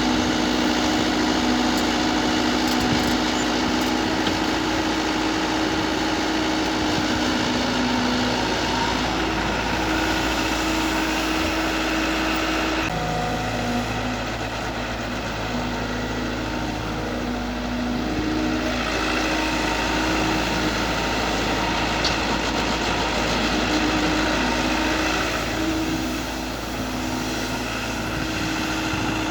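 Mini excavator's diesel engine running steadily as the machine works, its note shifting partway through as the load changes.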